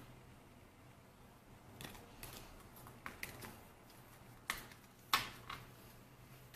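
Paper photocards and a sticker sheet being handled and set down on a table: a few light taps and clicks of card stock, the loudest about five seconds in.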